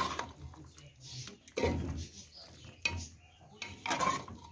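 Metal spoon stirring a thick tripe stew in a metal pressure-cooker pot, knocking and scraping against the pot a few times about a second apart.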